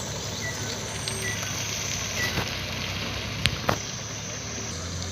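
A vehicle's engine running steadily, with two sharp knocks close together about three and a half seconds in.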